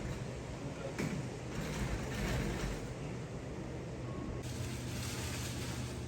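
Garage door installation work: a single knock about a second in, then a louder stretch of noise, over a steady low hum.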